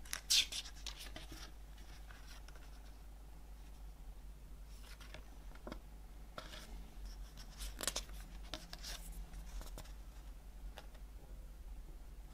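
Paper pages of a CD booklet being unfolded and turned by hand: dry rustling and rubbing in short bursts, the loudest right at the start and another cluster through the middle.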